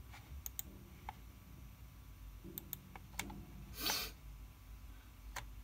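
Faint, scattered sharp clicks, with one short breathy rush of noise a little past the middle over a low steady hum.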